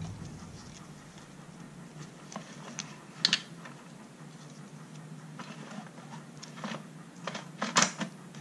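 Light scratching and small clicks from gloved hands working on a four-cycle string trimmer's exposed valve gear, with two sharper clicks about three seconds in and near the end, over a faint steady low hum.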